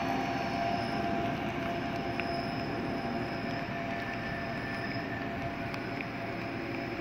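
Passenger train hauled by an El 18 electric locomotive rolling away along the track, its running noise slowly fading. A high wheel squeal dies out about a second in.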